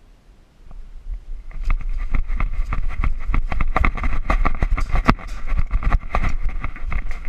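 Hurried footsteps crunching and scraping through dry brush and leaves, starting about a second and a half in, with heavy rumble from the microphone being jostled.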